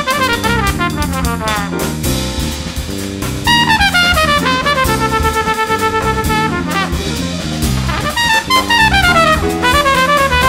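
Jazz trumpet soloing in fast runs, several falling, with a stretch of quick repeated notes on one pitch in the middle, over a walking electric bass line and drum kit.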